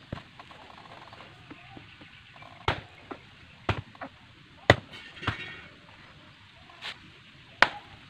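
Bolo knife chopping bamboo shoots on a wooden block: a series of sharp, unevenly spaced chops, the loudest about halfway through and near the end.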